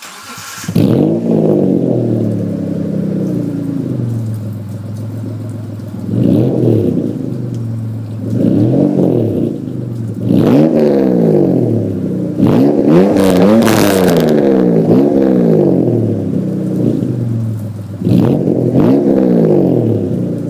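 Mitsubishi 3000GT's 3.0-litre V6 fires up through an open, catless dual exhaust with unbaffled mufflers, then idles and is revved in short blips about seven times, with a quick run of three or four blips near the middle.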